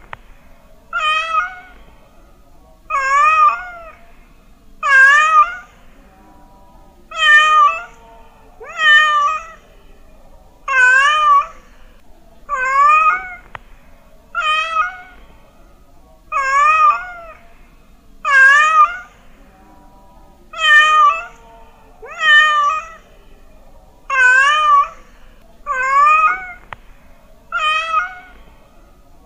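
Domestic cat meowing over and over, about one meow every two seconds, each meow wavering up and down in pitch.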